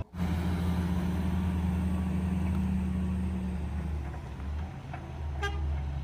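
Heavy-haul truck's diesel engine running steadily with a low hum, easing off a little after about three and a half seconds, with a brief sharp click about five and a half seconds in.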